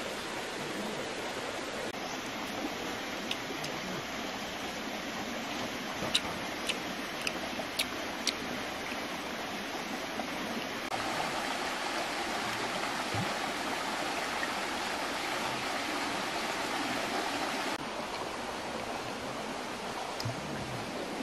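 Steady rushing outdoor background noise, like running water, with several short sharp clicks in the middle and a slightly louder stretch in the second half.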